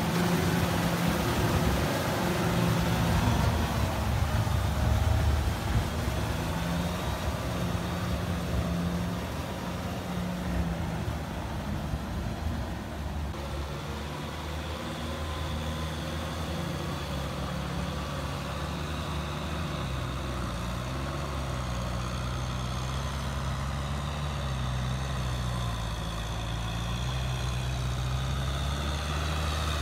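Diesel tractor engines running steadily while working a flooded, muddy rice paddy, their note shifting up and down with the load and throttle.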